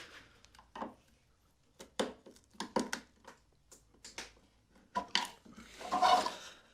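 Washing-machine parts being handled: scattered knocks and clicks, then a louder scraping clatter about six seconds in.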